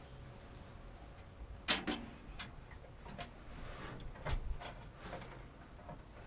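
Scattered light clicks and knocks from handling and routing a new oil pressure gauge line, with one sharper knock about a second and a half in.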